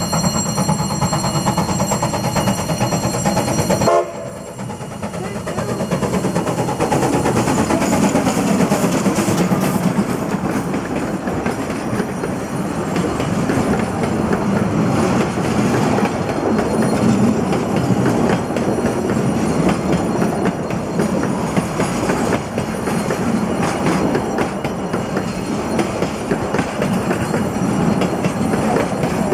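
A Baldwin Mikado steam locomotive's whistle sounds with a steady tone for about four seconds and cuts off sharply. The locomotive and its coaches then pass close by, wheels rumbling and clattering over the rail joints of the worn narrow-gauge track.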